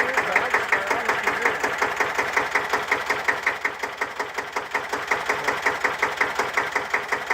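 1954 Deutz F1L612's air-cooled single-cylinder diesel engine idling, a steady, even run of rapid firing pulses. The tractor has just been overhauled.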